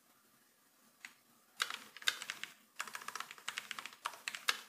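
Typing on a computer keyboard: quiet for the first second and a half, then a short burst of keystrokes, a brief pause, and a fast, steady run of keystrokes.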